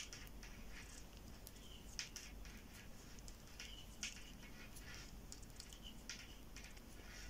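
Metal knitting needles clicking lightly and irregularly as knit stitches are worked by hand, faint throughout, with a few slightly louder ticks about two and four seconds in.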